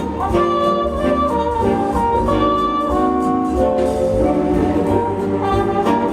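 Brass-led, jazz-style show music, with several sustained notes moving in step, heard over the venue's sound system.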